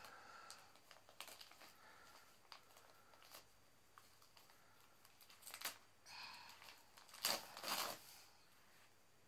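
Quiet handling sounds: small clicks and soft crinkling rustles as a toddler handles plastic toy tea-trolley pieces, with two brief louder rustles in the second half.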